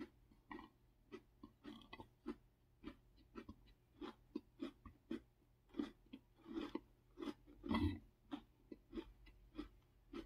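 Close-miked mouth chewing a soft blueberry-topped waffle: a steady run of short, wet smacking clicks, about two to three a second, with one longer, louder burst about eight seconds in.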